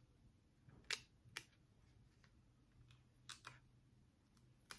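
Faint light clicks and taps of a plastic cushion-foundation compact being handled: one about a second in, another soon after, a pair around three seconds in and one more near the end, over near silence.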